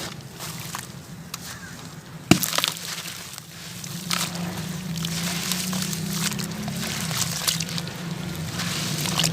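Crunchy sand-cement hearts crumbling and crackling in water, with one sharp crack a little over two seconds in and denser crackling from about four seconds on.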